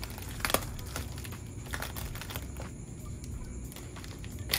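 Plastic air-column bubble wrap crinkling in a few short, sharp strokes as it is pulled open around a plant.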